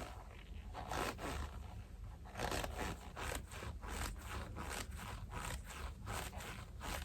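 A glove being stretched and pulled close to the microphone: a run of short creaks and rubbing squeaks that come about twice a second from a couple of seconds in, sounding a lot like leather.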